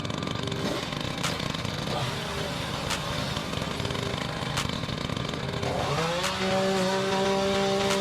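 Chainsaw running rough at low speed, then revving up about six seconds in to a steady, louder high whine.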